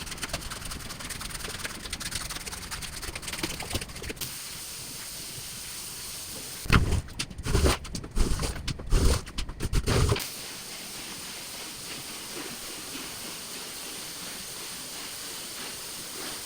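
Steady hissing from rug cleaning, with a cluster of several loud thumps about seven to ten seconds in.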